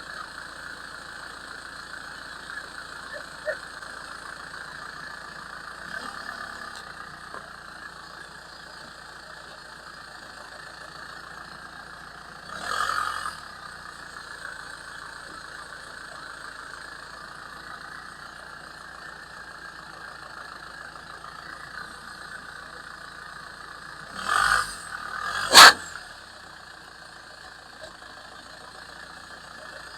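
A steady machine hum, with things being crushed: a short crunching burst about thirteen seconds in, and two more near the end, the last a sharp crack.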